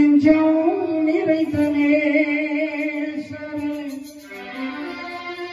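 Tamil qawwali: a man's amplified voice holding one long ornamented sung note, wavering in pitch about two seconds in. About four seconds in the voice stops and a quieter sustained electronic keyboard melody carries on.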